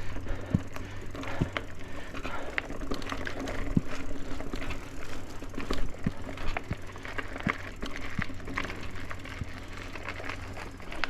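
Mountain bike being ridden over a dirt trail, with irregular clicks and rattles over a steady low rumble.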